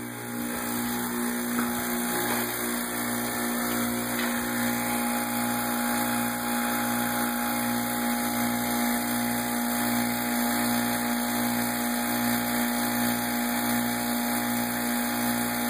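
Homemade fusor running with plasma lit: a steady mains hum from its 60 Hz high-voltage supply over the drone and hiss of its vacuum pumps, the low hum beating evenly a little faster than once a second.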